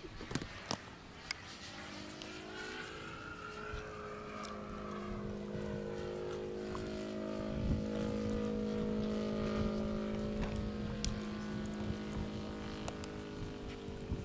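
Radio-controlled ONDA aerobatic model plane's motor and propeller droning in flight. It grows louder toward the middle, with the pitch bending as the plane manoeuvres. A few sharp clicks come near the start and again later.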